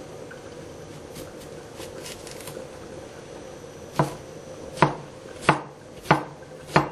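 Knife slicing a cucumber on a plastic cutting board. A few faint taps come first, then five sharp chops about two-thirds of a second apart in the last three seconds.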